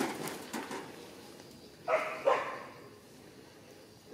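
An animal barking twice in quick succession, about two seconds in: two short, sharp calls less than half a second apart.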